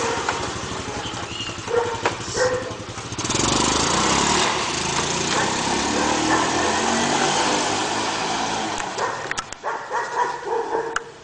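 Small motor scooter engine revving as it pulls away, its drone fading after about nine seconds as it rides off. A dog barks a few times, near the start and again near the end.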